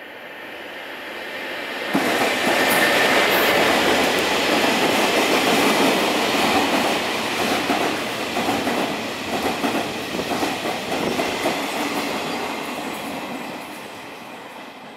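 Diesel locomotive hauling a freight train past at speed: its sound builds, then turns abruptly loud about two seconds in as the locomotive passes close. Loaded flatcars follow with a rhythmic clatter of wheels on the rails, which fades near the end as the train moves away.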